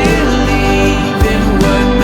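Background music: a worship song with band accompaniment, likely in an instrumental passage or a held sung note.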